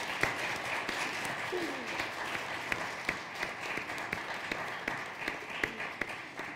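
Audience applauding steadily, the clapping thinning out toward the end.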